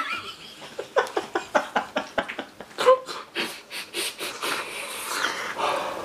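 A person's quick, breathy huffs in a rapid run, with a brief voiced sound about three seconds in.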